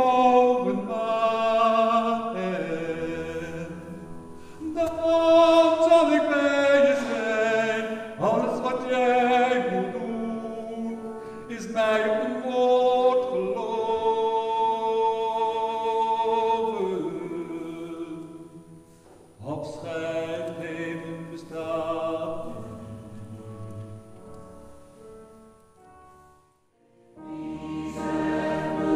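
A man singing a slow song with accompaniment. The music thins out and quietens about two-thirds of the way through, then a choir comes in loudly near the end.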